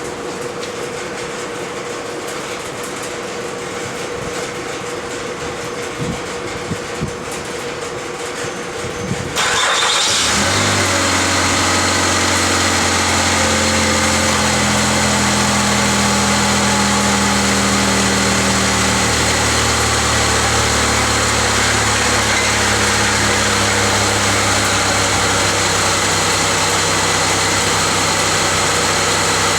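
2004 Mazda MPV's 3.0-litre V6 starting about nine seconds in, then idling steadily. The idle is smooth and not stumbling: the cylinder 4 misfire is cured by reseating the injector's electrical connector. A steady hum and a few clicks come before the start.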